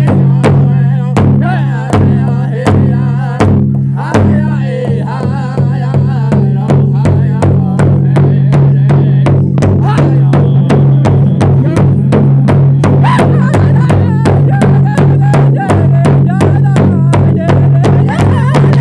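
Pow wow drum group: several singers strike a big hand drum together in a steady beat of about three strokes a second while singing a high, wavering chant over it. The recording is loud.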